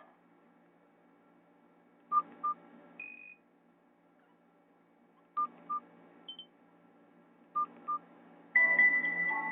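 Keypad beeps from a Nokia 216 as its buttons are pressed: three pairs of short beeps at the same pitch and a couple of brief higher tones. About a second before the end, a Nokia E75 ringtone starts playing through the phone's small speaker.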